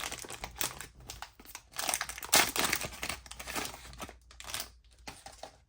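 A trading-card pack wrapper being torn open and crinkled by hand, in irregular crackles that thin out near the end.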